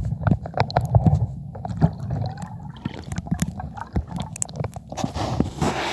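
Sea water sloshing and gurgling close to the microphone, with knocks and rubbing as the phone is handled, and a louder splash about five seconds in.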